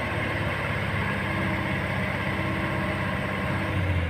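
Shaktiman truck's engine running steadily at idle.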